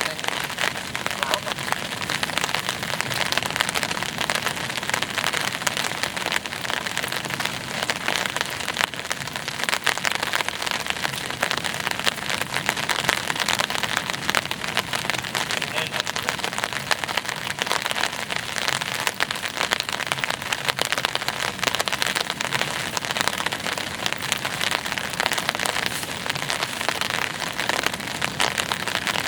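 Steady heavy rain, a dense, even patter of countless drops that neither builds nor eases.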